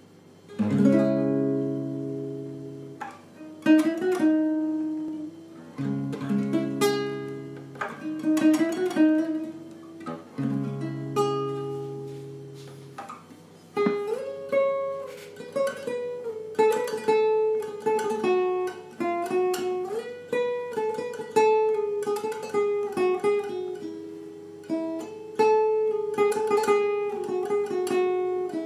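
Instrumental music on acoustic guitar: chords struck and left to ring for a few seconds each, then from about halfway a picked melody played over them.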